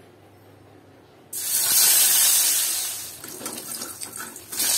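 Curd-marinated katla fish frying in hot oil in a wok: a loud sizzle breaks out suddenly about a second in as the fish goes into the oil, then settles to a lighter crackling sizzle and swells again near the end.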